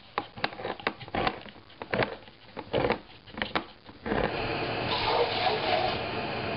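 Hand-held manual can opener cutting around the rim of a tin can, a string of sharp clicks a few a second. About four seconds in this gives way to a steady sizzle from meat frying in a pan.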